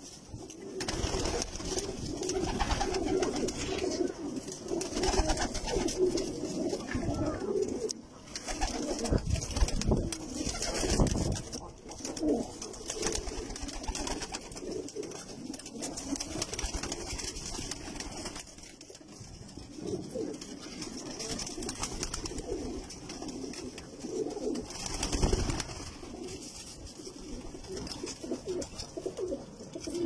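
A flock of domestic pigeons, Iraqi reds among them, cooing together in overlapping low coos. A few low thumps come in, mostly near the middle.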